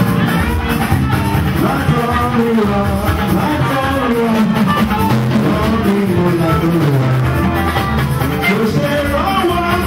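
Music with singing voices over a band with bass, drums and a steady beat.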